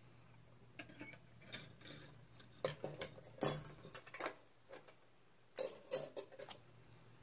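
Faint, irregular light metallic clinks and taps, a dozen or so, from small metal tools and pieces being handled during jewellery soldering work.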